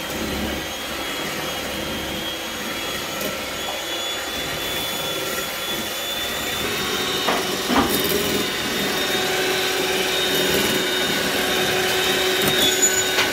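Electric hand mixer (Krups) running steadily at speed, its twin beaters whipping egg whites into a foam, with a steady motor whine that gets a little louder in the second half. Two brief knocks come about halfway through.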